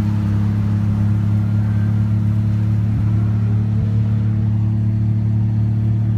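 Mazda RX-7 FC's 20B three-rotor rotary engine running at steady revs, heard from inside the cabin, a low, even note that holds its pitch.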